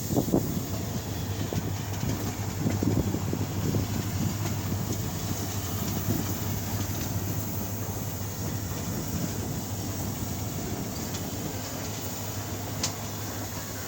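Steady low rumble of a moving vehicle, a hum with rattling over it, and a single click near the end.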